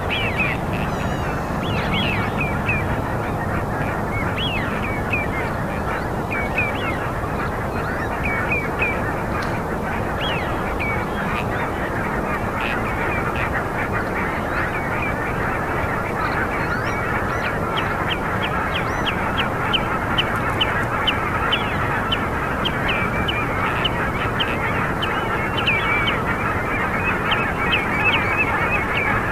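Many birds calling at once in a dense, unbroken chorus, with short high call notes repeating over a constant mass of overlapping calls and growing busier in the second half.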